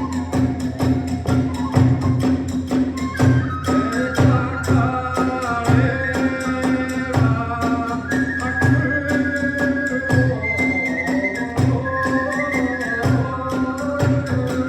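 Hiroshima kagura accompaniment music: a bamboo flute melody over a fast, steady clash of small hand cymbals and regular drum beats, the flute coming in a few seconds in.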